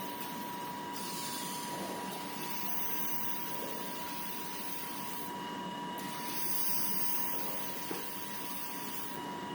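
Automatic band saw cutting machine for hand towel rolls running, with a steady high whine under stretches of hissing that come and go as it works.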